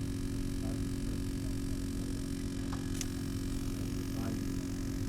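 Vehicle engine idling steadily, with one sharp click about three seconds in.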